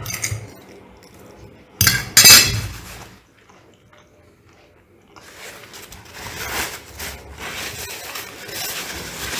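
Metal fork on a ceramic plate: two sharp, ringing clinks about two seconds in as the fork is set down. A softer, steadier noise follows in the last few seconds.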